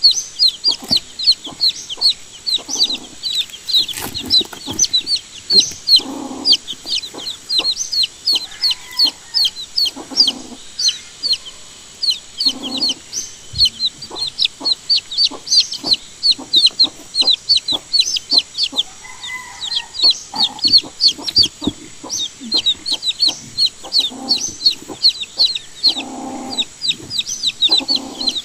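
Baby chicks peeping constantly: short, high-pitched, downward-falling peeps, several a second, from a few chicks at once. Every few seconds there is a lower, deeper sound, and there are scattered light clicks.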